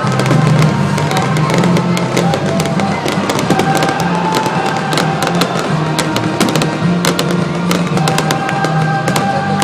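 Fireworks bursting and crackling in rapid, irregular succession over loud music from the stadium sound system.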